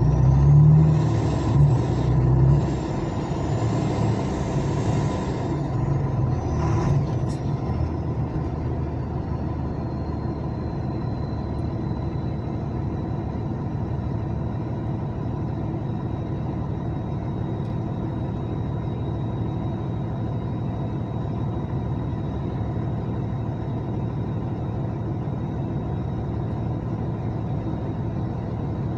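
Truck engine running steadily at low revs, heard from inside the cab, louder for the first few seconds. A high whine glides down over the first dozen seconds and settles into a steady tone, and there is a short hiss about seven seconds in.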